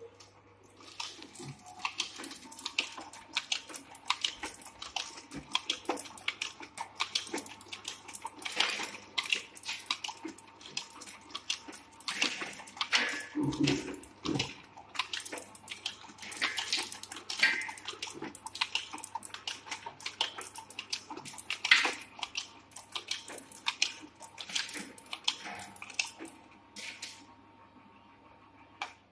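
Automatic pharmaceutical deblistering machine running: dense, irregular clicking and crackling as pills are pressed out of blister packs and fall into a steel barrel, over a steady low hum. The clicking starts about a second in and stops shortly before the end.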